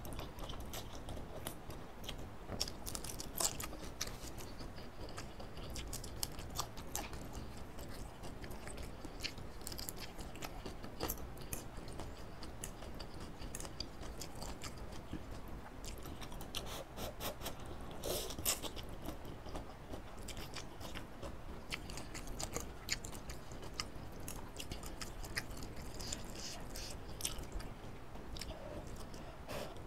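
Close-miked eating of instant noodles in hot soup: chewing and slurping with wet mouth sounds and many short sharp clicks scattered throughout.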